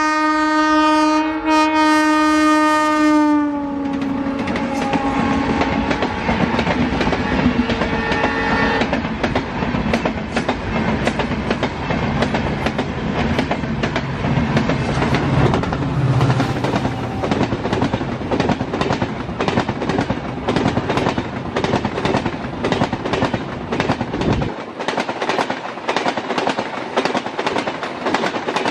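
Indian Railways locomotive horn blowing loudly for about four seconds, dipping slightly in pitch as it eases off, with fainter horn tones lingering for several seconds more. Then two express trains cross: a steady rush with rapid, continuous clatter of coach wheels over the rail joints as the coaches pass close by.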